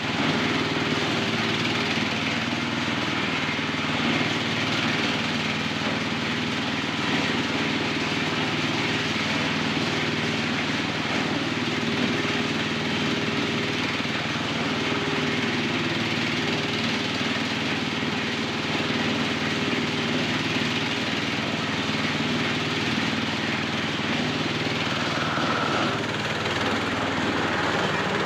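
Engine-driven SM10 corn sheller, built to shell maize without husking it first, running steadily: a constant engine drone with a dense rushing noise over it and no change in speed.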